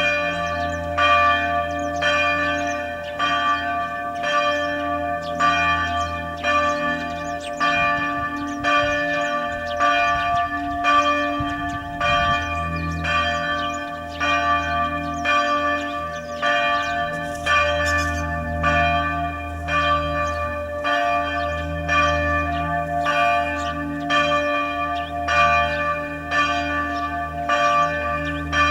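Church bells ringing in a steady run of strokes, each stroke ringing on into the next so that the bell tones hang continuously.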